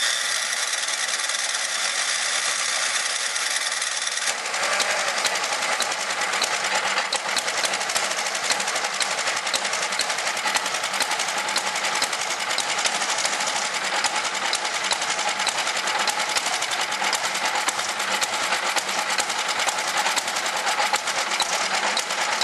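Tecumseh small engine on a Toro snowblower running, a fast, steady mechanical rattle of firing strokes that turns busier and rougher about four seconds in.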